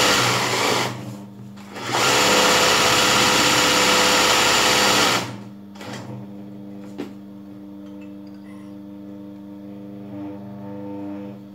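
Electric sewing machine stitching embroidery at speed. It stops briefly about a second in, runs again, then stops about five seconds in. A quieter steady hum remains, with a single click about seven seconds in.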